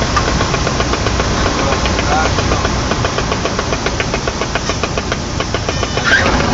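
Cessna 152's four-cylinder Lycoming engine and propeller droning steadily, heard inside the small cabin in flight.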